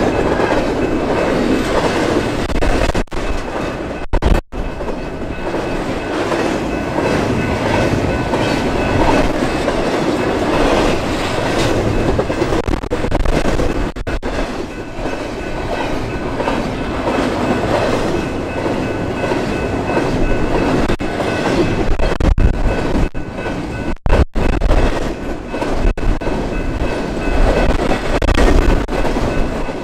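A train rolling steadily past, its cars and wheels running over the rails, with wind buffeting the microphone.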